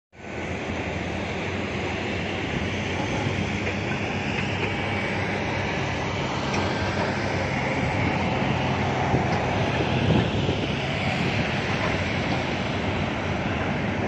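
Steady, even drone of the diesel engines of excavators and dump trucks working an open-pit coal mine.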